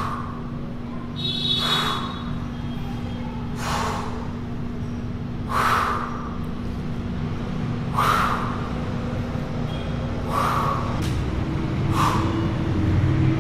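A man breathing out hard through nose and mouth with each dumbbell front raise: six sharp breaths, about one every two seconds.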